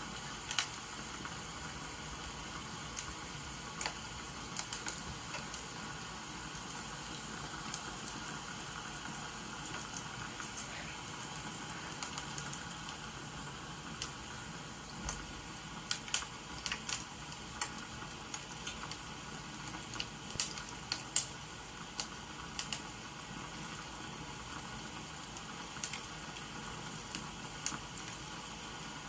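Wood fire crackling, with irregular sharp pops that come more often around the middle, over a steady hiss of rain.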